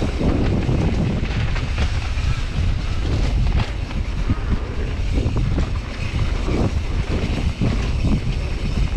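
Wind rushing over the microphone and a steady low rumble from a mountain bike riding down a downhill trail, with frequent small knocks and rattles from the bike over rough ground.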